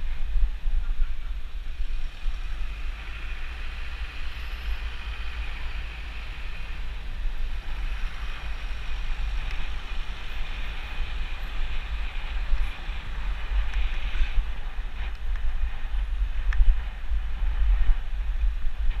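Wind buffeting the microphone of a handlebar-mounted camera on a moving bicycle: a continuous low rumble with a fainter steady hiss of tyre and road noise.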